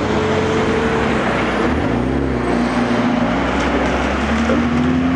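Nissan Skyline R34 GT-R's twin-turbo straight-six running as the car pulls out and leaves, its engine pitch dipping and rising unevenly, with a climb near the end.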